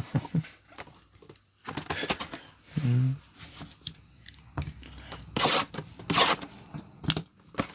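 Trading-card pack wrappers being torn open and crinkled, with cards shuffling and scraping. There are two louder rips about five and a half and six seconds in.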